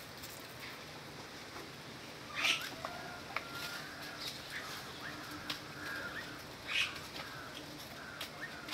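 Animal calls: two short, harsh cries, about two and a half and seven seconds in, with short rising chirps between them.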